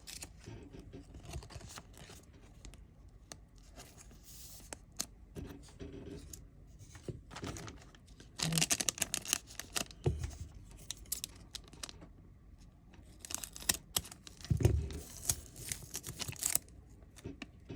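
Trading-card pack wrapper being crinkled and torn open, in two louder bursts of crackling about halfway through and again near the end, with light handling of the pack and cards in between.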